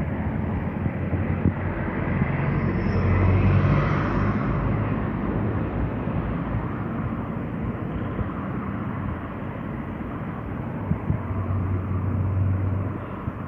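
Diesel freight locomotive running light in the distance, its engine a steady low hum that swells about three seconds in and again near the end.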